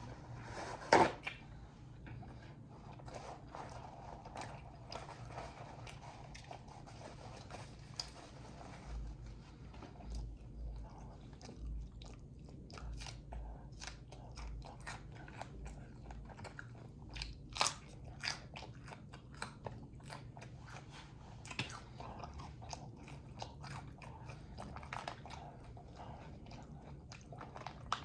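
A person eating close to the microphone: chewing and biting with crunches and many short sharp clicks. The loudest click comes about a second in and another around the middle.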